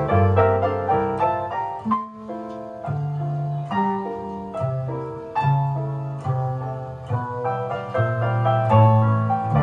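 Piano music played back from a Sony reel-to-reel tape through a 71A parallel single-ended tube amplifier and its loudspeakers: a steady run of struck notes over held bass notes.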